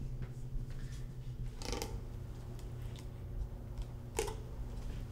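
A sip from a paper coffee cup, a short soft noise about two seconds in, over a steady low room hum. A second brief soft noise comes about four seconds in.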